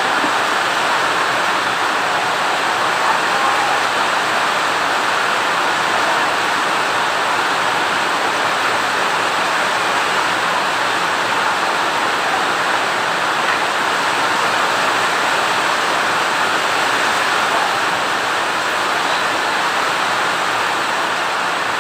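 Steady, even rushing noise, unbroken throughout and strongest in the middle range.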